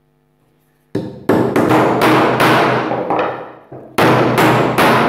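A hammer driving a nail through two overlapping timber boards. About a second in comes a quick run of sharp blows, then a short lull with lighter taps, then three more hard blows near the end.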